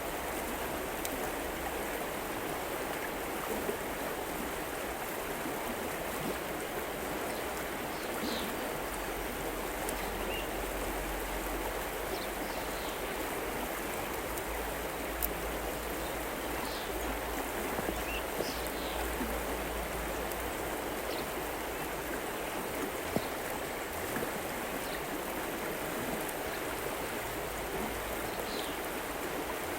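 River water flowing in a steady rush, with short high chirps every few seconds.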